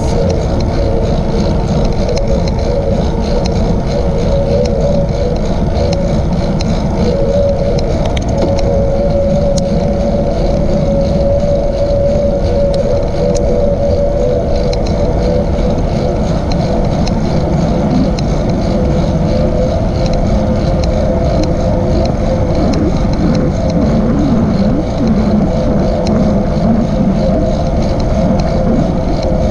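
Steady riding noise from a bicycle on a paved trail: a constant hum over a low rumble of tyres and wind on the microphone.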